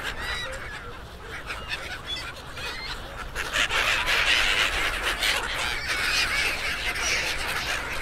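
A large flock of seagulls calling over one another, a dense chorus of short overlapping cries that grows thicker and louder about halfway through.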